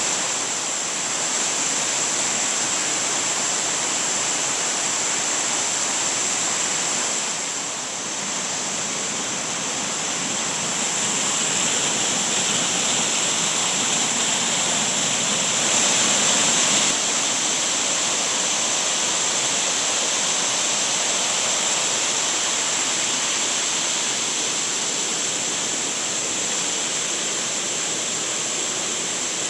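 Shiraito Falls, a wide curtain of many thin falls, pouring steadily: an even rush of falling and splashing water.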